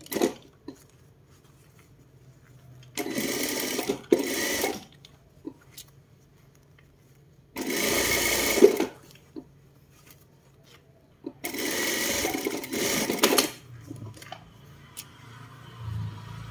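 Sewing machine stitching the facing seams of a trouser leg in four short runs of a second or two each, with pauses between, and a single clack just at the start.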